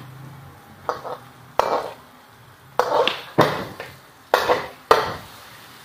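Metal ladle knocking and scraping against a steel wok as beef is stir-fried, in a series of uneven strokes, each a sharp hit that trails off briefly.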